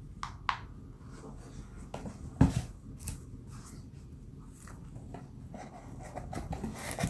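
Handling noises from shoes and their packaging being moved about by hand: scattered light clicks and rustles, with one sharper knock about two and a half seconds in.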